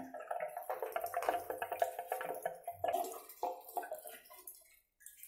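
Background music with a steady tune and light percussion, fading out and stopping just before the end.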